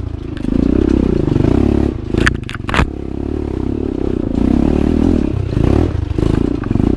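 Enduro dirt bike engine running under changing throttle, its pitch rising and falling, with a few sharp clacks about two to three seconds in.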